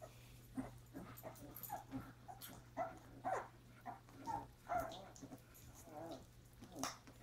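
Three-week-old puppies whimpering and squeaking in many short, high cries, some dropping in pitch, over a steady low hum.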